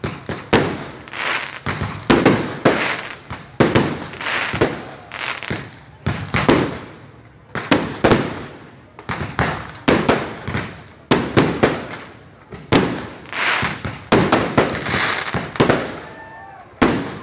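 Fireworks going off in a rapid series of loud bangs, about one a second, each fading off before the next, with a short lull near the end.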